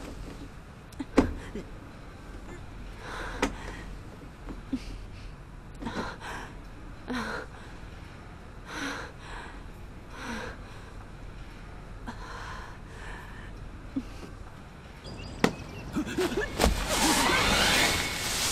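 A woman's short strained breaths and gasps, one every second or two. Near the end comes a sharp click, then rustling through grass.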